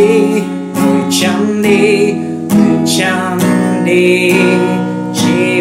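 Acoustic guitar strummed in a steady rhythm, with a man singing over it in phrases.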